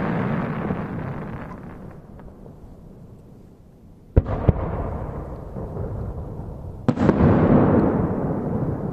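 Aerial firework shells bursting. The rumble of an earlier burst dies away; then two sharp bangs come close together about four seconds in, and another about seven seconds in, each followed by a long rolling echo.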